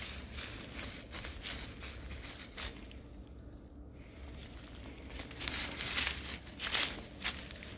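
Rustling and crunching of dry grass and fallen leaves underfoot, a string of short crackles that eases off briefly midway and is loudest near the end.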